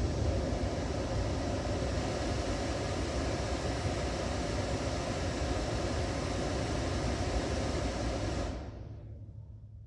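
Steady rush of air from a Kia Carnival's dashboard air-conditioning blower, over the hum of the idling engine, heard inside the cabin. The air rush stops abruptly near the end, leaving only a faint low hum.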